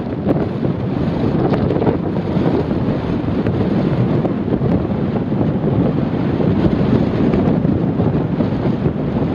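Strong wind buffeting the microphone, a loud, gusting noise, over rough sea surf breaking on a sandy beach.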